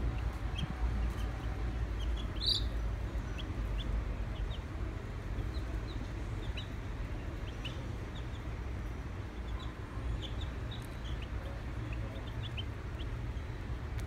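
A brood of young white chicks peeping, many short high peeps scattered throughout, one louder peep about two and a half seconds in, over a steady low hum.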